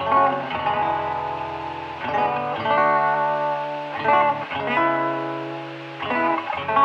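Instrumental song intro: guitar chords ringing out, a new chord struck about every two seconds, with no singing yet.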